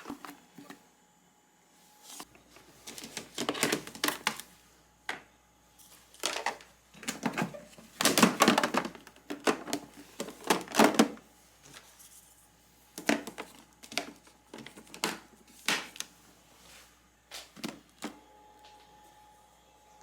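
Kitchen items being handled and set down: an irregular run of clicks, knocks and light clatters, busiest about halfway through.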